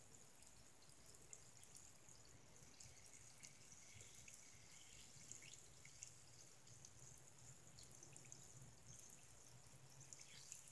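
Very faint dripping and small water sounds as a hand moves through water in a sink basin.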